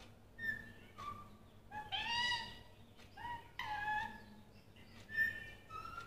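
Indian ringneck parakeet calling in short two-note phrases, a higher note followed by a lower one, repeated about four times.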